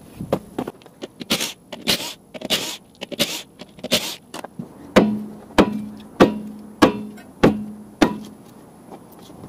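Cordless impact wrench hammering in short bursts on lug nuts, then six hammer blows on a wheel, about one every 0.6 s, each with a short ring, as a stuck wheel is knocked free of its hub.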